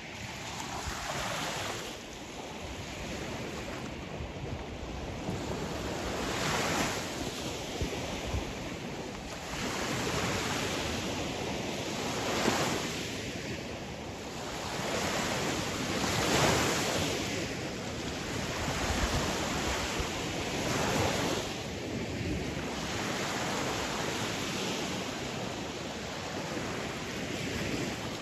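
Sea waves breaking: a continuous wash of surf that swells and falls back as each wave comes in every few seconds.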